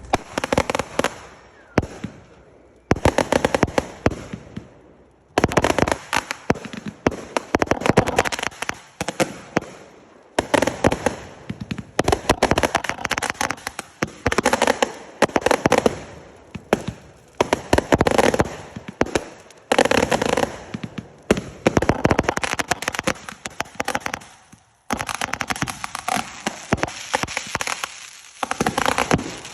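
Strings of firecrackers going off in dense, rapid crackling volleys, with a few brief pauses between them.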